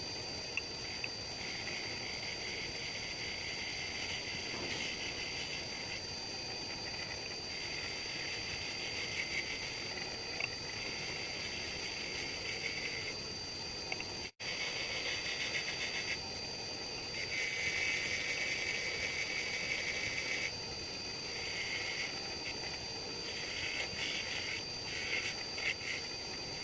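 Bench grinder wheel running with a steady high whine, while steel parts of a pneumatic chipping hammer (the chisel and the cylinder) are pressed against it. The grinding and polishing hiss swells and fades as each part is pushed on and eased off the wheel.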